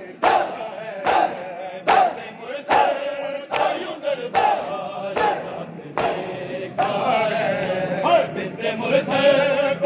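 A group of men chanting together while beating their chests with open hands in matam, the slaps landing in unison about once every 0.8 seconds. After about six seconds the slaps become weaker and uneven while the chanting carries on.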